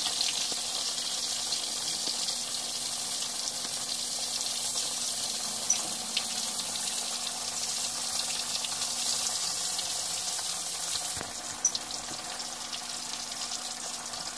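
Chapli kababs shallow-frying in hot oil in a cast-iron skillet: a steady, dense sizzle with fine crackling, and a couple of sharp clicks.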